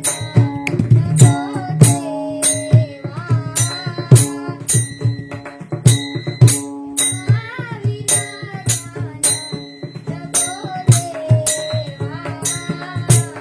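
Devotional singing in the Warkari style: a single voice sliding and wavering in pitch over a steady held drone, with hand cymbals and a drum keeping a steady beat of about two strokes a second.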